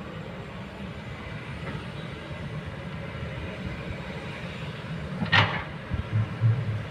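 Kobelco excavator's diesel engine running steadily under work, with a sharp metallic clank about five seconds in, followed by two low thuds.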